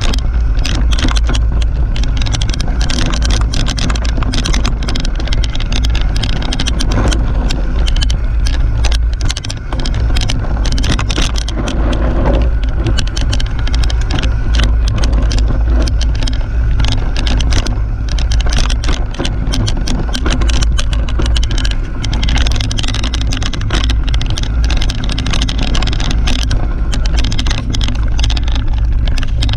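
Mountain bike rolling fast down a rough dirt singletrack, heard from a camera mounted on the bike or rider: a steady low rumble with constant irregular rattling and clacking from the bike jolting over the trail.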